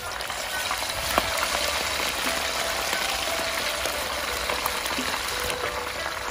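Chunks of raw meat sizzling hard in deep, very hot oil in a wok, a steady loud frying hiss, with one sharp knock about a second in.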